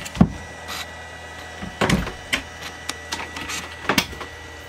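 Several sharp wooden knocks and clicks as the boat's cabin floorboards are handled over the open bilge, over a steady electrical hum.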